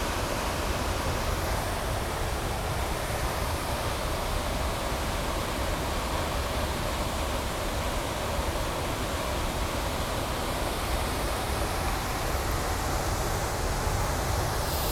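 Large waterfall pouring over a rock edge onto the rocks below: a steady, unbroken rush of falling water.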